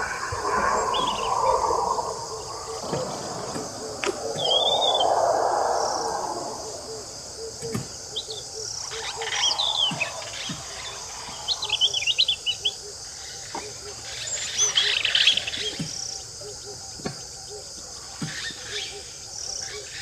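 European robin singing: short, high, thin twittering phrases with pauses between them. A lower rushing noise runs under the first few seconds, and a faint steady high hiss lies beneath.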